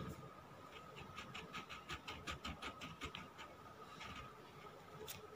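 Sketch pen scratching on paper in quick repeated strokes, about six a second for a couple of seconds, faint.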